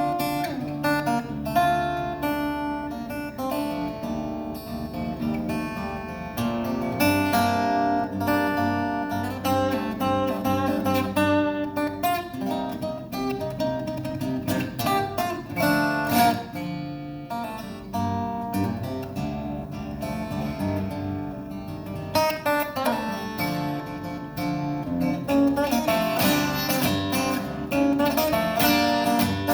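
Acoustic guitar played live: a continuous flow of plucked notes and chords ringing over one another.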